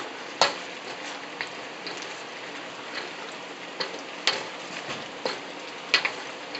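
Beef and pepper stir-fry sizzling in its sauce in a wok, with a spatula scraping and knocking against the wok now and then; the sharpest knocks come about half a second in and near the end.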